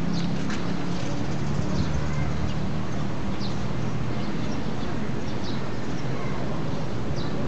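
Steady background noise with a low hum and scattered short, high chirps every second or so.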